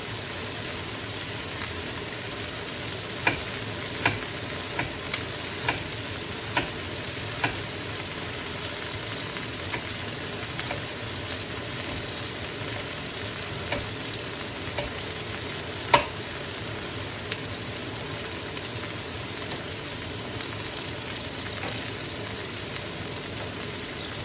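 Chicken pieces browning in hot oil, a steady sizzle, with sharp knife taps on a cutting board as onions are cut: a quick run of taps a few seconds in and a single louder one past the middle.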